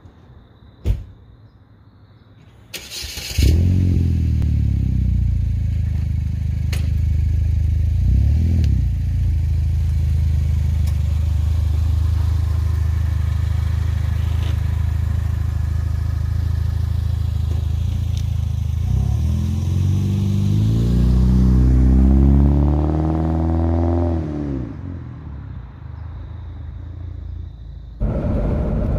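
Chevrolet HHR SS's turbocharged 2.0-litre four-cylinder, running through a muffler-delete exhaust. It starts with a brief crank about three seconds in, then idles steadily. About two thirds through it revs up in one long climb and drops back, then settles to a quieter idle.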